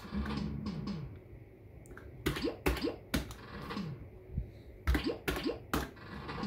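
Maygay The Great Escape fruit machine: a short falling electronic tune plays as the reels spin, then two runs of three sharp clunks as the three reels stop one after another, each with a short falling electronic tone.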